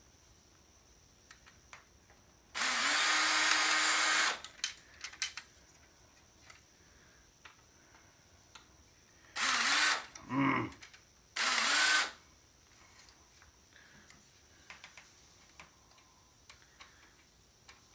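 Power drill running in three short bursts as it backs out screws: one run of nearly two seconds, then two brief ones about seven seconds later, each spinning up as it starts. Light clicks of screws and parts being handled fall between the runs.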